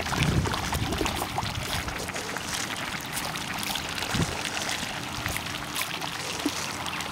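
Young Muscovy ducks splashing and dabbling in shallow water, many small splashes and water sounds as the group wades in and pecks for food.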